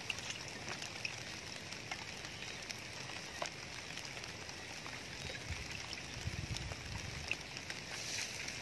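Quiet outdoor ambience by shallow water among grass: a steady hiss with scattered small ticks and patters. A soft low rumble comes in for a couple of seconds past the middle.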